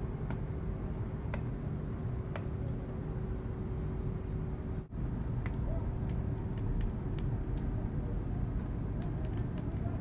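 Steady low machine drone with a constant hum, from the running iron-melting furnace, with scattered light metallic clicks as the tap hole is worked open and molten iron runs into the ladle.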